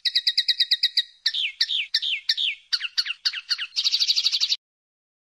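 Common linnet singing: a quick run of about ten rapid notes a second, then a series of downward-slurred notes, ending in a fast buzzy trill that stops abruptly about four and a half seconds in.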